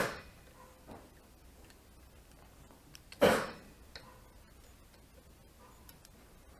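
Dirt bike handlebar controls being fitted by hand: two sharp clacks of parts against the handlebar about three seconds apart, with a few light ticks of small metal parts between them.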